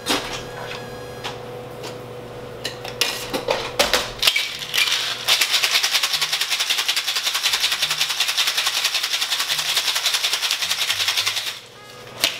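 A few clinks of ice and glassware as a Boston shaker (metal tin over a mixing glass) is filled and closed. About five seconds in, ice rattles fast and evenly inside it as the cocktail is shaken hard for about six seconds, then stops abruptly. Soft background music runs underneath.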